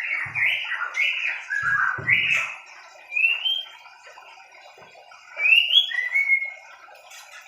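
White-rumped shamas calling: a run of quick chirping notes for the first two seconds or so, then two rising whistled notes a couple of seconds apart. A few soft low thuds sound among the first notes.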